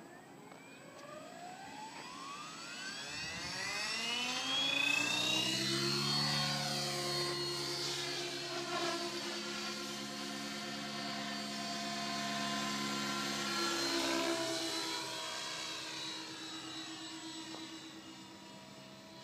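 Synergy E7SE electric RC helicopter spooling up and lifting off. Its motor and rotor whine rises steeply in pitch over the first six seconds, then holds as a steady rotor hum in flight. About fifteen seconds in, the pitch rises and falls briefly, and the sound gets a little quieter near the end.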